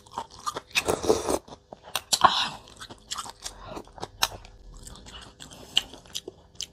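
Close-miked chewing and wet mouth sounds of a person eating mackerel noodle soup and fish cakes, mukbang-style, with a couple of louder noisy mouth sounds about one and two seconds in.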